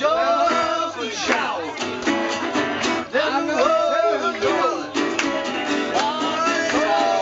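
Two acoustic guitars strummed together while male voices sing a folk song.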